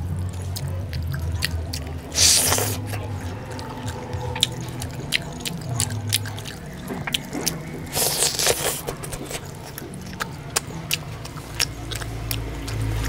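Wet squelching and sticky clicking of greasy roast chicken being torn apart and mixed with rice by bare hands, then bitten and chewed. There are two longer, louder tearing sounds, about two and eight seconds in.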